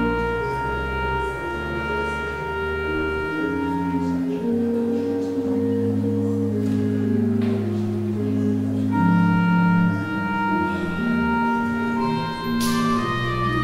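Church organ playing a slow piece of sustained notes, with a high held note over lower parts that move step by step.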